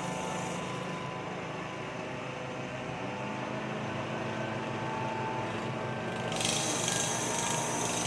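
Gas-powered leaf blower engine running steadily, with a rush of air; the high hiss grows louder about six seconds in.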